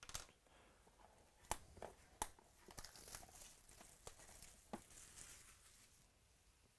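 Faint tearing and crinkling of a trading card pack being opened, with several short sharp clicks along the way.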